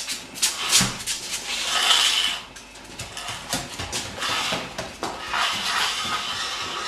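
Glass Duvel beer bottles clinking and knocking against one another and the fridge shelves as they are put in, an irregular series of clinks and rattles.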